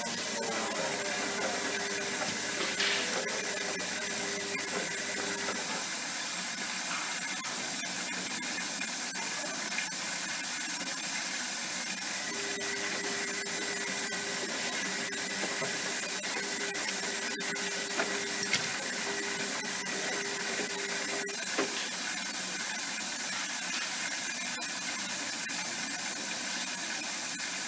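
Zanussi ZWG 6161 P washing machine running through its extraction spin, with a steady rushing hiss. A low hum cuts in for the first few seconds and again for a stretch in the middle, with a few faint clicks.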